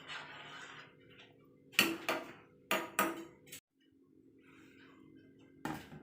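Kitchen utensils knocking and clinking: about six sharp clicks spread over a few seconds while plantain pieces are cut and handled, over a faint steady hum.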